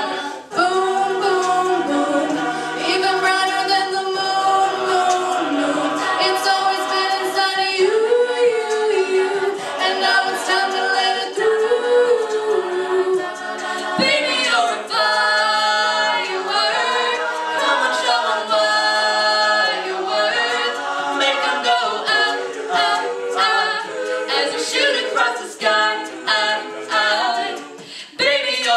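A mixed-voice a cappella group singing in sustained chords. From about halfway through, short clicks that are likely vocal percussion come in as a beat.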